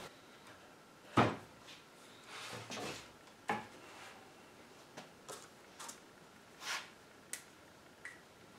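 Wooden frame of a Paul McCobb 432 dining chair knocking against a workbench as it is set down upside down and handled: one firmer knock about a second in, then a string of lighter knocks and taps with some soft rubbing.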